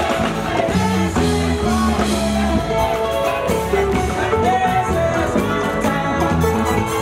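Loud dance music with a singing voice over a steady, moving bass line.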